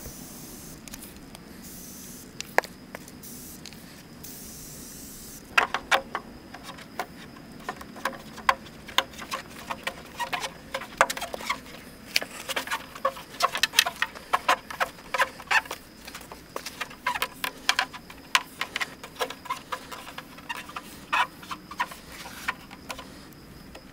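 Molding strip being pressed by hand onto the edge of a front bumper: a long run of irregular sharp clicks and taps, several a second, starting about five seconds in. Before that, only a soft hiss.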